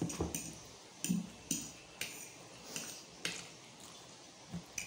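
Metal forks clinking and scraping against plates as noodles are eaten, in short sharp clinks spaced irregularly, about one every half second to a second.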